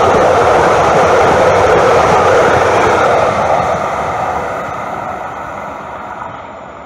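Calgary CTrain electric light-rail train passing close by at speed, a steady rush of wheels on rails that fades away as the train moves off, from about three seconds in.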